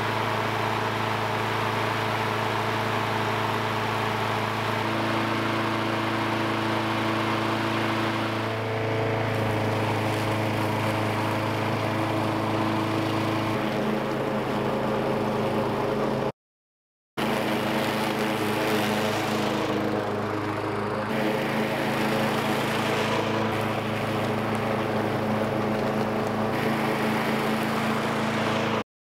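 Walk-behind lawn mower's small single-cylinder engine running smoothly and steadily on a 50-50 gasoline-diesel fuel mix while cutting grass. Its note shifts a little a few times, and the sound cuts out for about a second around the middle.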